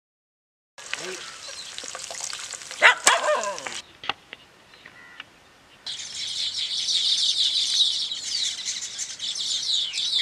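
Birds chirping in a dense chorus over the second half, after a short animal call about three seconds in.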